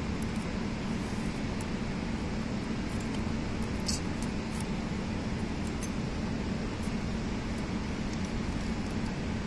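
Steady low machine hum with a few faint metallic ticks of hand tools against the engine's rocker arms and adjusting screws, one a little sharper about four seconds in.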